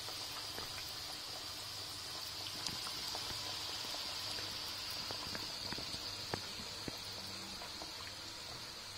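Aloo kachoris deep-frying in a kadai of oil: a steady sizzle with scattered small pops and crackles. The oil has got a little hotter than intended.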